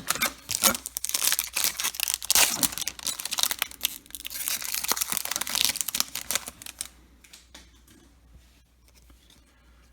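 A trading-card pack wrapper being torn open and crinkled, a dense crackling that lasts about seven seconds, then quieter rustling as the cards are handled.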